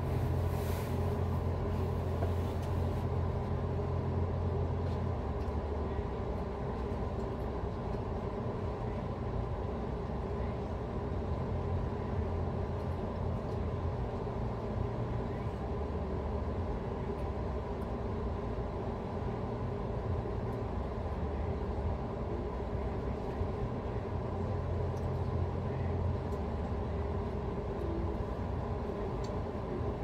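A steady low rumble, heaviest in the first few seconds and then settling.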